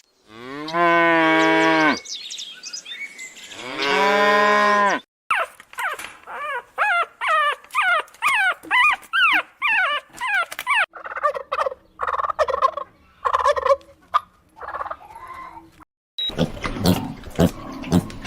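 Cattle mooing: two long, held calls in the first five seconds. They are followed by a quick run of about a dozen short calls that rise and fall, then other animal calls.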